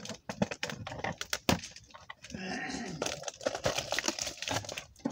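Cardboard toy box and its plastic packaging being handled and pulled at: irregular clicks, knocks and rustling, with a brief faint murmur of a voice about two and a half seconds in.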